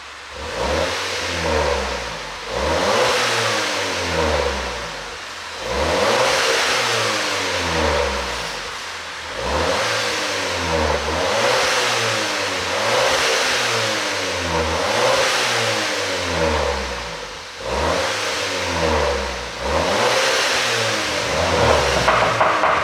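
2015 Audi A5 40 TFSI's turbocharged four-cylinder engine revved over and over, its pitch rising and falling about once every two seconds, through an exhaust with a pop-and-crackle engine tune.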